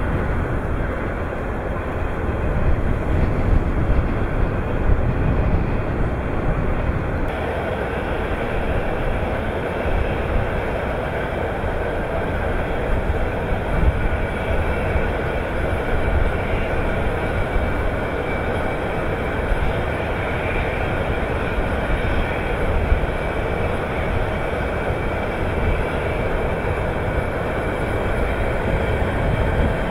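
Steady rumble of heavy ore-handling machinery, with strong, uneven low-end energy throughout.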